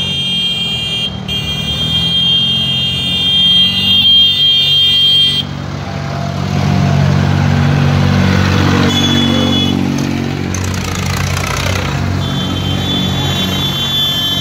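Farm tractors' diesel engines running as a column of tractors drives slowly past, louder in the middle as one passes close. A steady high-pitched tone sounds over them for the first five seconds and again near the end.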